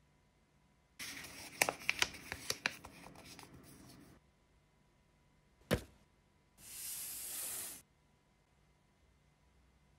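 A sheet of drawing paper being handled on a wooden desk. About a second in, three seconds of crackling rustle with sharp crinkles; a single knock near the middle; then about a second of steady hiss as the paper slides across the desk.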